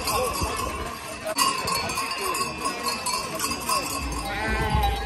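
Cowbells clanking and ringing on yoked cattle as they are led past on foot.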